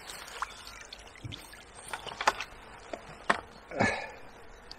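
A few short splashes and light knocks as a small skimmer bream is drawn to the bank on a pole and scooped out of the water in a landing net.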